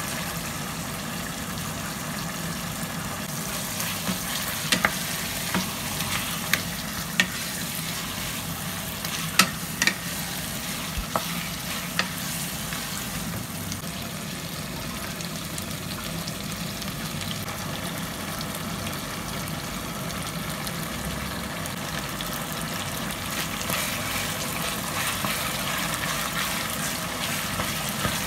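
Chicken pieces frying in oil in a nonstick pot, a steady sizzle while a wooden spatula stirs them. A run of sharp taps between about four and twelve seconds in, as the spatula and a spoon knock against the pot. The sizzle grows a little stronger near the end.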